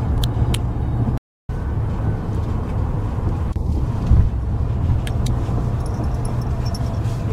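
Steady low rumble of a car's cabin while driving, with road and engine noise. The sound cuts out completely for a moment about a second in.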